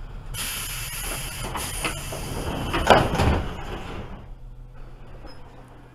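Air-operated sliding doors of a JR 205-series commuter train: a sudden hiss of compressed air, then the doors shutting with a thump about three seconds in. A steady low hum is left afterwards.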